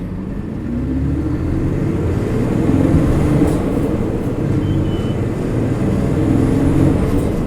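Isuzu Erga Mio city bus's diesel engine accelerating hard under load, its pitch rising over the first couple of seconds and then holding high as the bus gathers speed.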